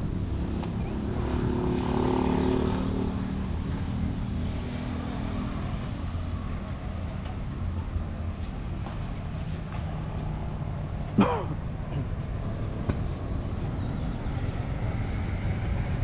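Outdoor street ambience with a steady low rumble. A car engine passes in the first few seconds, and a single short, sharp sound comes a little past the middle.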